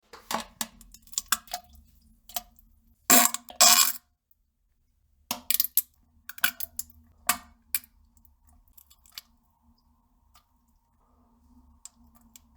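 Someone defecating into a toilet: a series of short, sharp plops and splashes into the bowl water, the loudest pair about three seconds in, with more scattered through the middle, over a faint steady hum.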